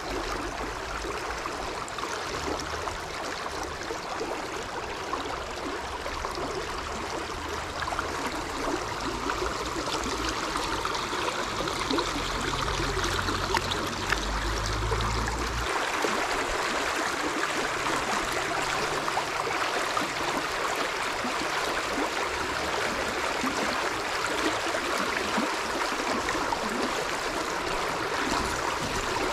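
Shallow stream water flowing and rippling steadily. A low rumble runs under it through the first half and stops suddenly about halfway through.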